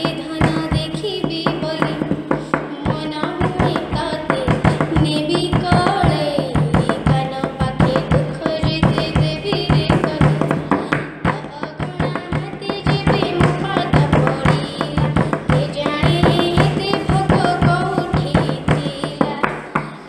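A girl singing an Odia devotional bhajan to Jagannath, her voice gliding between held notes over quick, busy drum strokes and a steady low drone.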